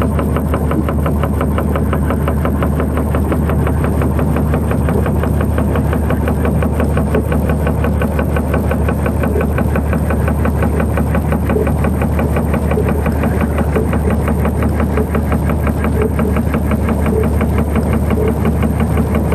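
Dark ambient music: a dense, steady machine-like drone with a fast, even pulse over a deep hum.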